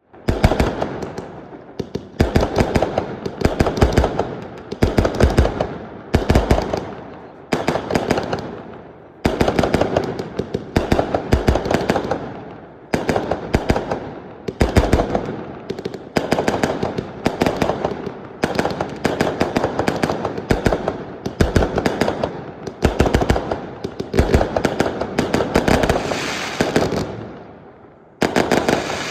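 Aerial fireworks going off in rapid succession: cluster after cluster of sharp bangs and fast crackling reports, each dying away over about a second before the next, a new volley every second or two.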